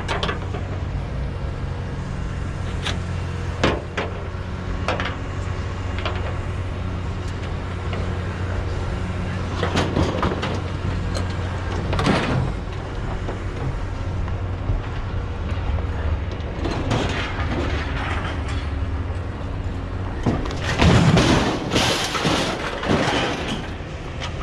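A vehicle engine running with a steady low hum, with scattered knocks and clunks over it and a louder stretch of rattling and clattering near the end.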